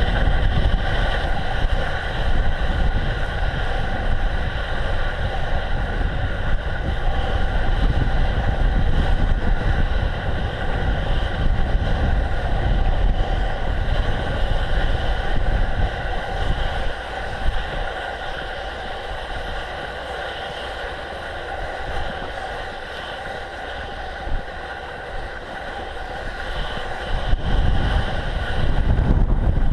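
Steady wind buffeting on the microphone and tyre noise from a bicycle riding over snow. It eases about halfway through and picks up again near the end.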